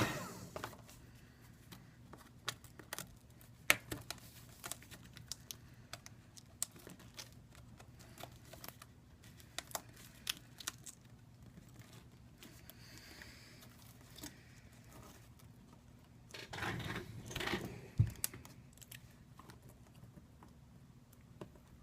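Faint, scattered clicks and ticks of hand tools prying at an iPad 2's glass digitizer, with small crackles of softened adhesive tearing loose. About sixteen seconds in comes a brief louder stretch of scraping that ends in a sharp knock.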